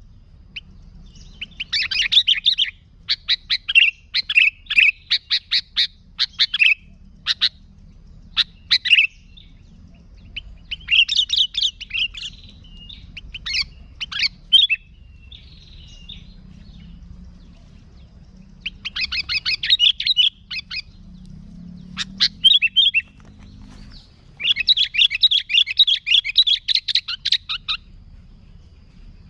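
Sooty-headed bulbul (kutilang) singing vigorously in repeated bouts of rapid chattering notes, each bout a second or two long with short pauses between.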